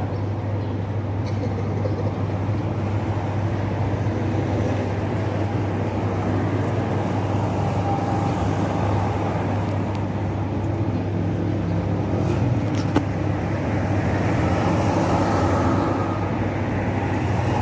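Steady low engine hum over a constant haze of outdoor background noise, with a single sharp click about thirteen seconds in.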